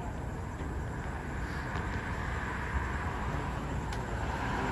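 Steady low rumble of vehicle engines running at a street scene, with a few faint ticks.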